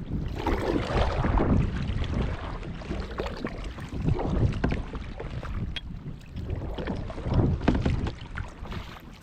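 Paddle strokes through lake water: a rushing swish that swells three times, about every three seconds, with wind buffeting the microphone.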